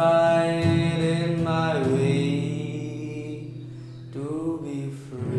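A singer drawing out long wordless notes: one note held for nearly two seconds, sliding down to a lower note held for another two, then a fresh note near the end.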